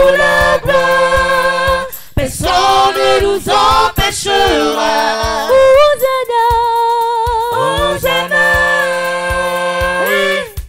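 Small mixed vocal group of men's and women's voices singing a French-language worship song a cappella in harmony, holding long chords, with a short break between phrases about two seconds in.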